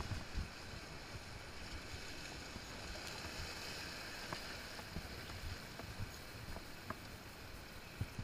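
Steady wash of sea surf on the rocks with wind rumbling on the microphone, and a few faint small clicks.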